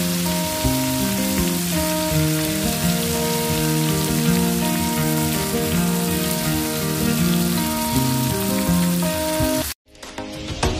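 Flour-coated crabs deep-frying in a pan of hot oil: a steady, dense sizzle, with background music playing over it. Both cut off abruptly near the end, and different music begins.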